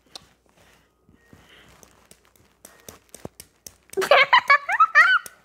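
A child's high-pitched, squealing giggle breaks out about four seconds in, a rapid run of short rising cries. It follows a few seconds of faint handling clicks.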